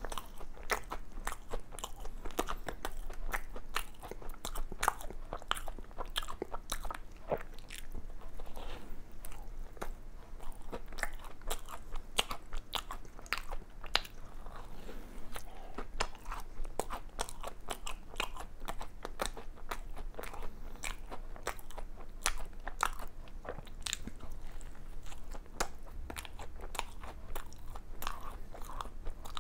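Close-up biting and chewing of a Krispy Kreme doughnut with a crunchy cookie-crumb topping: a dense, irregular run of small crunches and mouth clicks.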